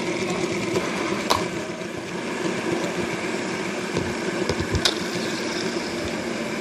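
Several linked fidget spinners whirring steadily, with two sharp clicks, one about a second in and one near the five-second mark.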